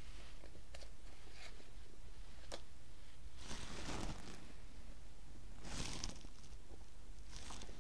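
Pokémon trading cards slid across one another in the hands as each card is moved from the back of the stack to the front. Soft swishes come about three and a half seconds in and again near six and seven and a half seconds, with a few small taps between them, over a steady low hum.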